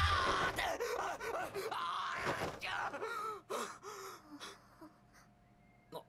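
A young man's voice in Japanese anime voice acting, gasping sharply and crying out in panic, breaking into shorter breathy cries that die away near the end.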